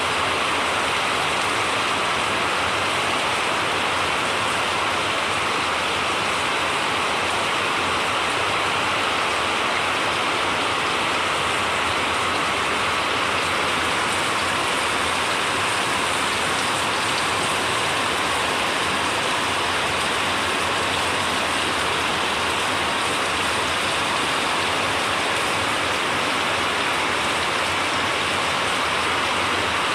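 Heavy rain pouring down steadily onto a flooded road, with runoff water rushing across it.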